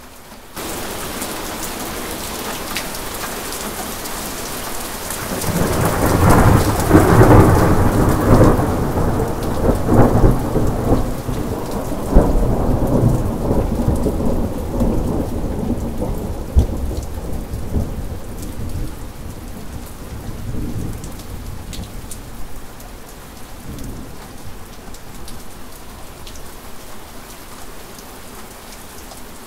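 Steady rain with a long peal of thunder. The rain jumps up in level half a second in. The low rumble builds about five seconds in and is loudest over the next few seconds, with sharp cracks. It rolls on with further cracks and fades away by near the end, leaving the rain.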